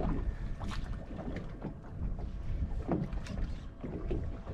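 Wind buffeting the microphone over the sound of water against a small boat's hull, with scattered short clicks and knocks.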